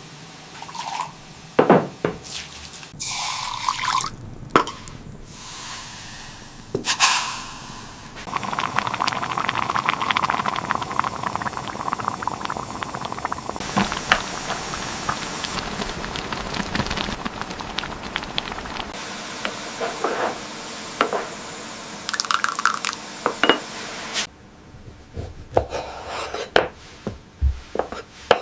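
Food-preparation sounds in a kitchen: liquid pouring and dripping, with sharp knocks and taps from handling utensils and containers, and a long steady stretch of noise in the middle.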